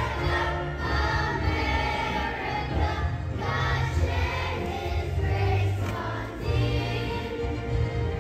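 A children's choir of third graders singing a patriotic song in unison over an instrumental accompaniment with a strong bass line.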